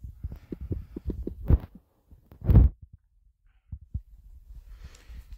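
Irregular dull taps and knocks of fingers typing on a smartphone touchscreen, with a louder bump about two and a half seconds in.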